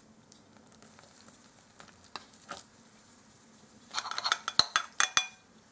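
Metal spoon scraping in a glass baking dish and clinking against a china plate while serving baked syrniki: a few soft scrapes, then a quick run of sharp, ringing clinks about four seconds in.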